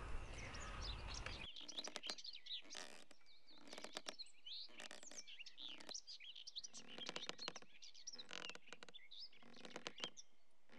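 Faint birdsong: many short chirps and twitters.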